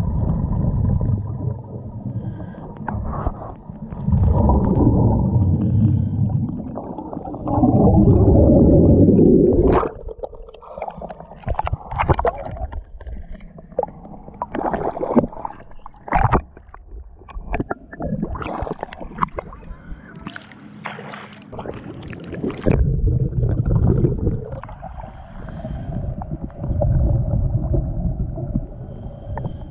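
Water noise on a camera carried by a swimmer in a lake. Muffled rumbling and gurgling underwater at first. From about a third of the way in, a stretch of choppy splashing and water slapping at the surface. Near the end, muffled underwater rumbling again.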